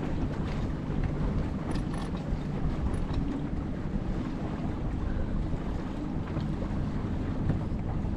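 Steady low wind rumble on the microphone of a mast-mounted camera aboard a sailboat, with a few faint ticks about two and three seconds in.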